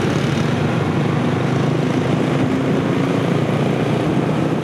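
Busy city road traffic: many motorcycles and cars passing close by, their small engines making a steady, loud drone.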